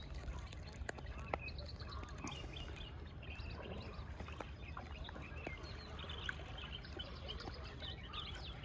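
Faint, scattered short bird calls over a low steady rumble, with a few light clicks.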